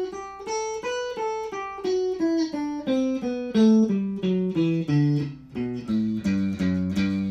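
Electric guitar playing a G major scale in a three-note-per-string pattern, one note at a time, a few notes a second: it climbs to the top for about the first second, then runs back down and ends on the low root G, left ringing.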